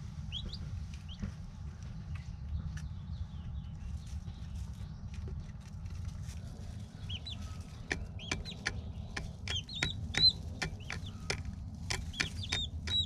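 Turkey poults peeping: short, high chirps, a few at first, then coming thick and fast in the second half, mixed with sharp taps as the poults peck at the tripod. A steady low hum runs underneath.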